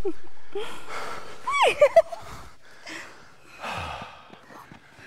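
A person breathing hard and gasping after a climb, with a short falling vocal sound about a second and a half in.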